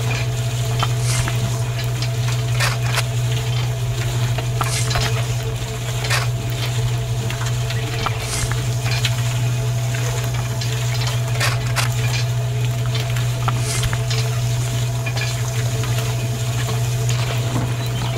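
Small electric motor running steadily, shaking a miniature vibrating sand sieve, with a continuous hiss of sand sifting through the mesh and pouring down the chute. Scattered clicks of grit and small stones hitting the metal trays.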